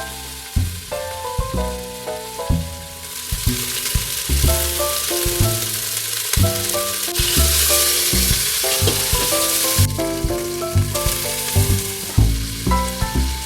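Food frying in hot fat in a pot, a steady sizzle that grows louder about three seconds in, over light instrumental background music.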